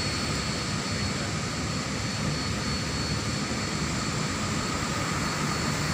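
Steady machinery rumble with a faint constant high-pitched whine.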